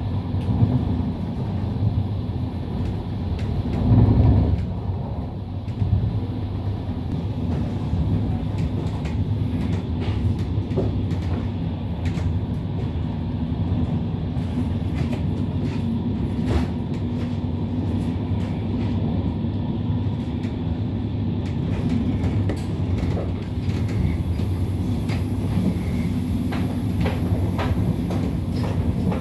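Intercity train running at speed, heard from inside a passenger coach: a steady low rumble of wheels on rail. Scattered light clicks run through it, with a brief louder bump about four seconds in.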